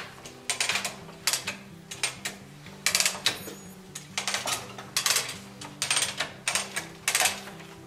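Hand-cranked hard rubber tire machine being worked, its gears and ratchet clattering in short metallic bursts every half second to second as the crank is pulled round.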